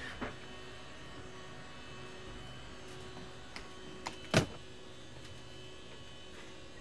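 Steady electrical hum inside the cabin of a parked Lockheed L-188 Electra with its engines off, with a few light clicks and one sharp knock about four and a half seconds in.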